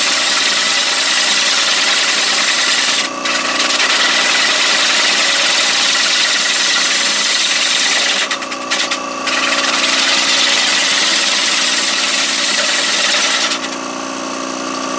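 A turning tool cutting a spinning ash bowl on a Powermatic wood lathe: a loud, steady hiss of shavings coming off. The cut breaks off briefly about three seconds in and twice around eight to nine seconds, then eases off near the end. A steady hum from the lathe motor and vacuum pump runs underneath.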